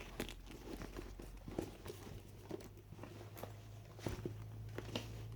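Faint handling noises of a used Coach handbag: scattered soft clicks and rustles as the bag and its lining are moved about.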